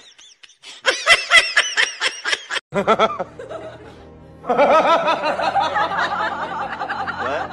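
Laughter over background music: a run of quick, high-pitched giggles about a second in, then, after a short lull, steadier laughter from about halfway on.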